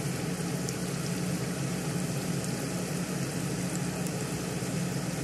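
Onion fritters deep-frying in hot oil in a cast-iron skillet, a steady sizzle, over a steady low hum.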